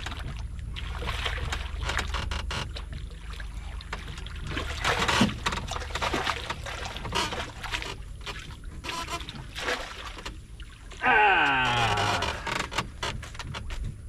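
Splashing and knocks around a fishing canoe as a hooked pacu is played and brought in on a light rod, over a steady low rumble. About eleven seconds in, a person lets out a loud drawn-out cry that falls in pitch.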